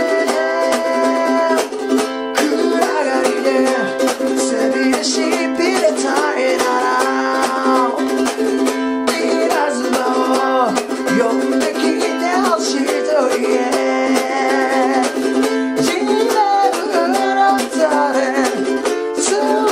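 Ukulele strummed fast in a steady sixteenth-note rhythm on Am, G7 and C chords, with a man singing a rock song over it.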